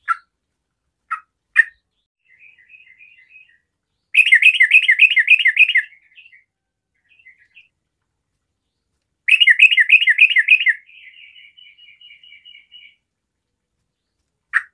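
Yellow-vented bulbul (trucukan) singing vigorously. A few short single calls come first, then two loud, rapid phrases about five seconds apart, each lasting about a second and a half. The second phrase trails off into a run of softer repeated notes.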